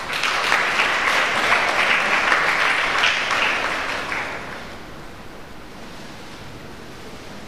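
Audience applauding, a dense patter of clapping that dies away after about four to five seconds.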